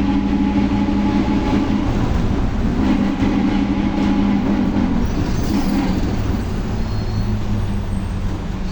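Volkswagen 17.230 OD city bus under way, its differential growling loudly over the drivetrain drone. The steady hum weakens about five seconds in while a lower drone carries on.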